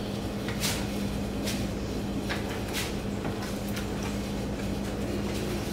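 A spoon scraping and clinking against a cooking pot as crab boil seasoning is stirred into the water, a handful of short strokes roughly a second apart, over a steady low hum.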